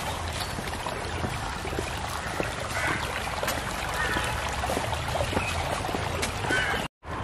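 Water running steadily in a roadside channel, with many small ticks and faint high chirps over it. The sound cuts off suddenly near the end.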